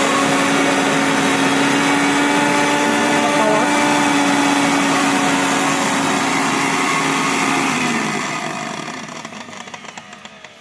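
Hamko mixer grinder's motor running at speed, grinding dried red chillies in its jar with a steady whirring hum. About eight seconds in it is switched off and winds down, the hum sinking in pitch and fading away.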